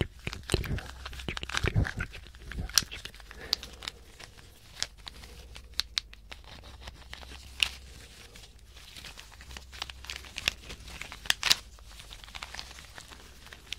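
Wooden snake puzzle made of small red and plain wooden blocks being twisted close to the microphones: irregular small clicks and knocks of wood on wood, with a few sharper clicks among them.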